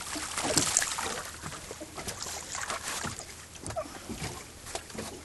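Water splashing and lapping against the side of a small boat as a hooked fish is lifted out of the water, with scattered small knocks and clicks.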